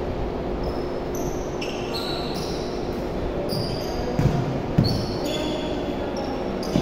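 Basketball bouncing on a wooden gym floor, a few thumps in the second half, with many short high squeaks of sneakers on the court and a steady low hum in a large echoing gym.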